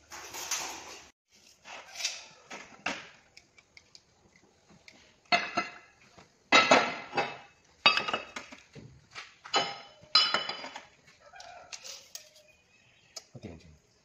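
Sheet steel clanking and rattling as it is handled, in a string of short metallic clatters, some of them ringing. They come about once a second and are loudest in the middle.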